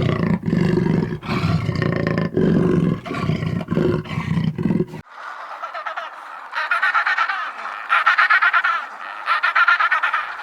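Tiger roaring and growling in deep repeated bursts. About five seconds in it cuts off abruptly, and fowl calls follow in rapid, higher-pitched pulses.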